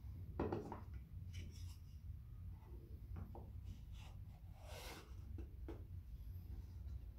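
Small wooden box and its sliding lid handled on a metal saw table: a knock about half a second in as a piece is set down, a few light taps, and a short scrape near the end as the lid slides along its grooves. A low steady hum runs underneath.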